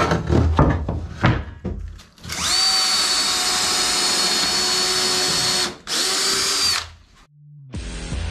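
A few knocks and rubbing as a wooden board is handled, then a power drill driving a screw through a French-cleat board into the wall. The drill runs steadily for about three and a half seconds, stops briefly, then gives a short final burst. Guitar music starts near the end.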